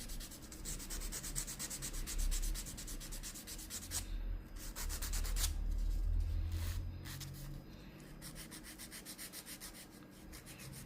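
A nail file rasping in quick back-and-forth strokes over a glued-on fake nail, filing it into shape, with a couple of brief pauses.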